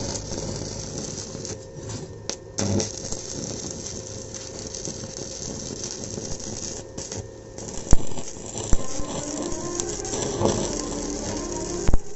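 Stick (arc) welding on an iron frame: the electrode's arc crackles and sputters steadily, with a few sharp pops, the loudest about eight seconds in and another near the end.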